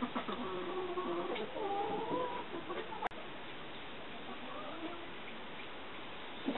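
Domestic turkeys calling: a run of short, wavering pitched calls over the first two and a half seconds, then a sharp click about three seconds in, with only a faint call after it.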